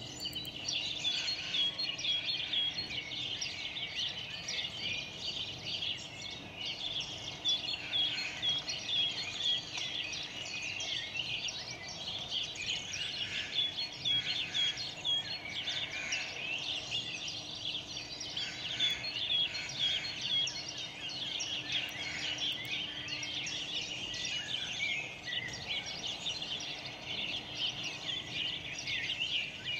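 Many small birds chirping and singing at once, a dense continuous chorus of short high chirps, over a faint steady low hum.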